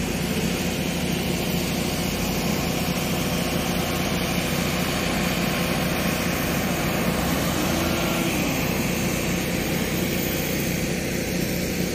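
Hydraulic excavator's diesel engine running steadily, without pause or change in level.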